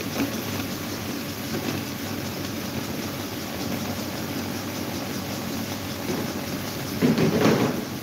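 Several electric desk fans running together: a steady whir of motors and blades moving air. About seven seconds in, a louder rush of air swells for under a second.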